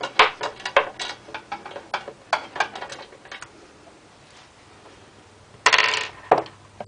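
Ratchet wrench clicking, about four or five clicks a second and fading, as a heat shield bolt on a Predator 212 engine is backed out; near the end, a brief louder clatter.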